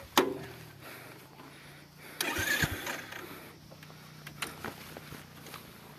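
Royal Enfield single-cylinder motorcycle engine starting and settling into a steady idle, with a short louder burst about two seconds in.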